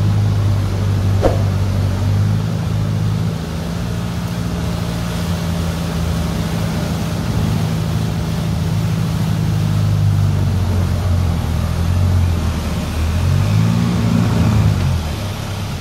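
Off-road 4x4's engine running at a low, steady pitch, with a single sharp click about a second in; near the end the engine revs up and drops back down.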